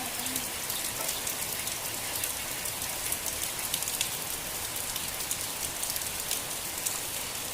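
Steady rain falling, with many quick ticks of single drops striking a surface.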